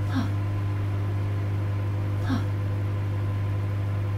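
Microwave oven running: a steady low hum, with a short sound repeated twice, about two seconds apart.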